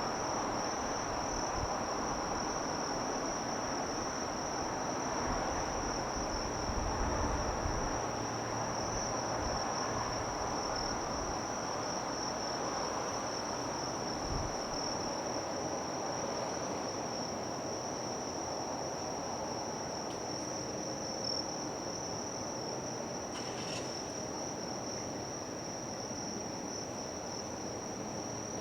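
Insects trilling in one steady, unbroken high tone, over a steady background of distant city noise, with a few low wind rumbles about six to ten seconds in.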